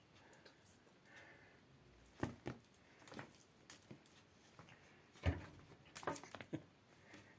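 Cats pouncing on and batting at a dried grass spikelet: scattered light taps and knocks, with the loudest, a low thump, a little after five seconds in, followed by a quick cluster of taps.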